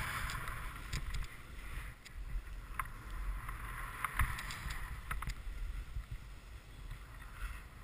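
Snowboard sliding and scraping over hard, wind-packed snow, with wind rumbling on the camera microphone and scattered sharp clicks.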